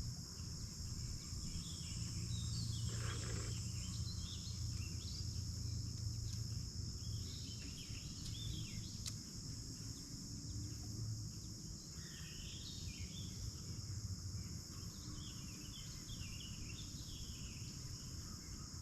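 A steady, high chorus of insects, crickets or similar, over a low steady hum, with scattered short chirps, most of them about two-thirds of the way through.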